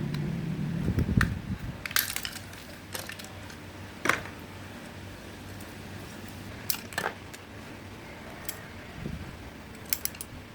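Sharp, separate clicks and light clatter of small hard parts being handled, a second or more apart. A low rumble comes first, in the opening second or so.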